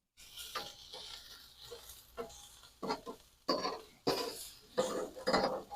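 Metal grilling utensil scraping and clinking against a charcoal grill's cooking grate as burger patties are shifted around, in a run of irregular strokes that come faster and louder toward the end.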